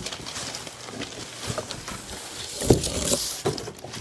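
Cardboard boxes and packaging being handled and slid on a tabletop: rustling and scraping, with a few knocks, the loudest a little under three seconds in.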